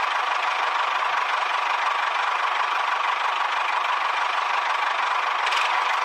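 Small motor of a homemade model tractor running steadily as it drives, an even whirring hum with a held tone in the middle and almost no bass.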